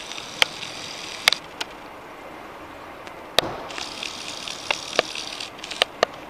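A video camera's zoom motor whirring twice, a high hum lasting a second or two each time, with irregular sharp clicks and knocks from handling the camera throughout.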